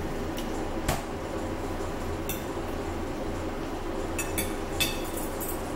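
Metal fork clinking and tapping against a dinner plate while eating, a sharp clink about a second in and a quick run of clinks near the end, over a steady low hum.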